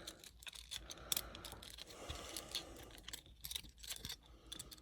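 Faint, irregular clicking and light rattling of small plastic parts and wiring being handled by hand.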